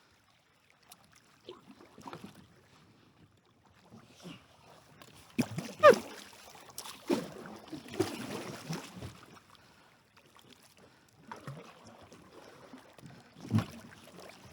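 Kayak and paddle knocking and scraping against logs and branches, with scattered knocks, a sharp knock with a brief squeak about six seconds in, a rustling, splashing stretch after it, and another knock near the end.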